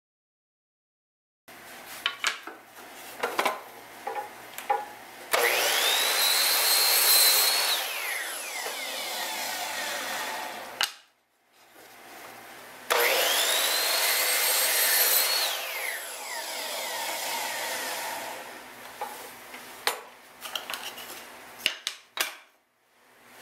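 Miter saw cutting walnut strips twice, about five seconds in and again about thirteen seconds in. Each time the motor whines with the blade cutting the wood, then the whine falls away as the blade spins down, with clicks and knocks of the wood and saw being handled in between.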